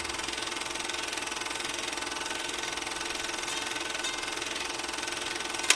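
A steady, fast mechanical clatter, with a sharp click near the end.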